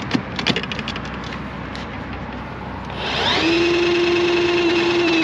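Clicks and rattles as the drain snake is handled. About three seconds in, the Milwaukee M18 cordless drain snake's motor spins up quickly and runs at a steady whine.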